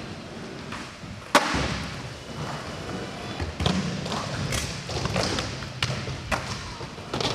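Skateboarding: wheels rolling with a steady hiss, broken by sharp clacks and thuds of boards popping, hitting obstacles and landing. The loudest crack comes about a second and a half in, with several more hits later on.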